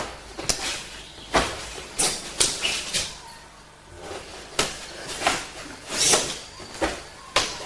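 Hands and forearms smacking together in a fast, irregular run of blocks and strikes during a two-man kempo karate kata, about a dozen sharp slaps over several seconds.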